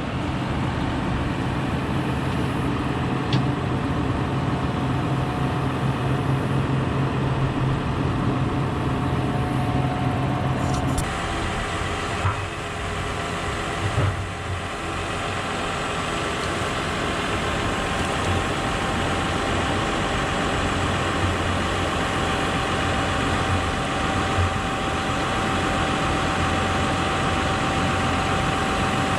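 Tractor engine running steadily. About eleven seconds in its low note drops and a higher whine comes in.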